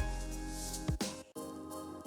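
Background music with a beat, a drum hit at the start and another about a second in.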